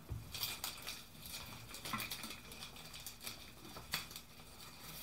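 Light, irregular ticks and rustling of a short length of hookup wire being handled and prepared, with one sharper click a little before the end.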